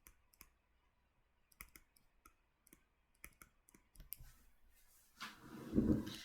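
Scattered light clicks and taps of a stylus on a drawing tablet, with a louder rustle near the end.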